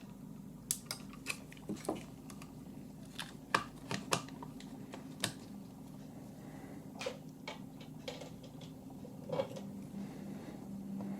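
Faint, irregular light clicks and taps, about a dozen of them, from small camera parts and tools being handled on a workbench, over a faint steady low hum.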